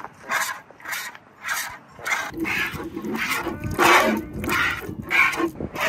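A cow being milked by hand: jets of milk squirting into a nearly empty plastic bucket in a steady rhythm, about two squirts a second.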